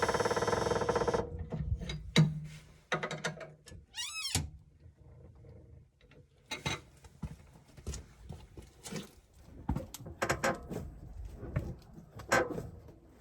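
Irregular knocks and clicks from a car's left front lower control arm bushings as the suspension moves, with a buzzy creak in the first second and a short squeak about four seconds in. The noise came from a worn front pillow-ball bushing, with a deteriorated compliance bushing also found.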